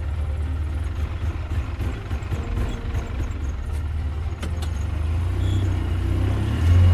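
A vehicle engine running steadily at a low pitch, growing louder toward the end.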